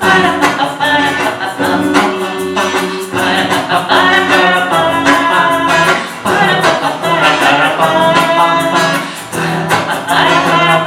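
A song: voices singing over acoustic guitar accompaniment.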